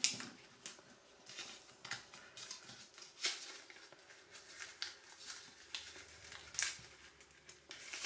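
Square origami paper rustling and crinkling as it is pressed into a squash fold, in short, irregular crackles.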